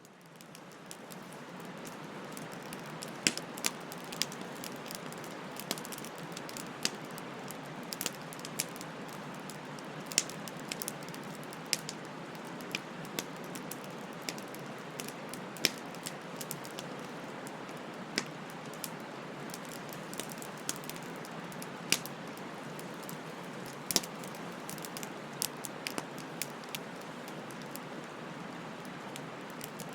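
Wood fire burning, a steady hiss with frequent sharp, irregular crackles and pops. It fades in over the first second or so.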